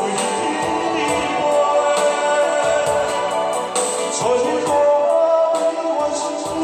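A man singing live into a microphone over backing music with a steady drum beat.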